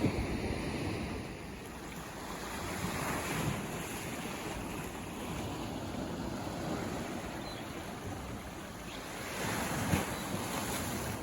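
Ocean waves washing onto the shore in a continuous surf, swelling louder as waves break about three times, with a low rumble of wind on the microphone.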